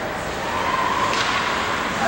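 Ice hockey play: skates scraping and sticks clattering on the ice, with a sharp clack a little over a second in and a voice calling out in the middle.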